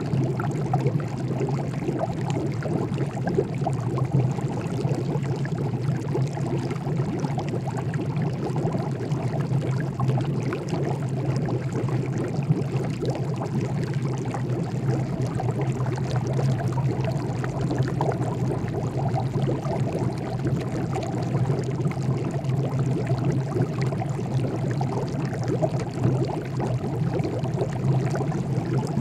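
Water boiling: a steady, dense bubbling over a low rumble.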